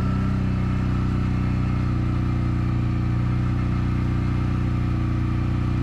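ATV engine running at a steady pitch under throttle, the revs dropping off right at the end.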